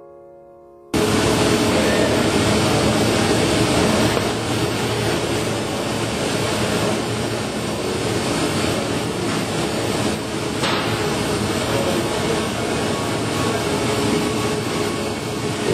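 Bullmer Premiumcut ultrasonic cutting machine running as it cuts pre-preg composite on its cutting table: a loud, steady machine noise that starts abruptly about a second in.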